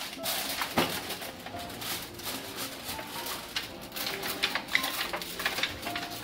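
Aluminium foil crinkling and a foil-covered roasting pan scraping and knocking as it is slid onto a metal oven rack, in a string of short crinkles and clicks.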